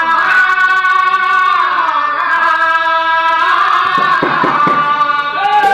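A solo voice sings an Odia Pala devotional song, holding long, high notes that slide down and then rise again. It breaks off near the end.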